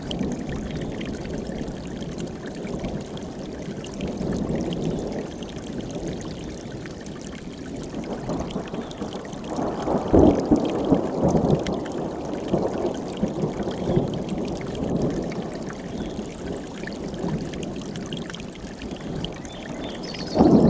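Mountain stream rushing and gurgling over rocks, a steady churn of water that swells louder about halfway through.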